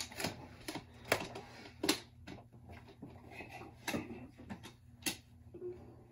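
Toy plastic lightsabers clacking and knocking, with about eight sharp irregular clacks spread over six seconds.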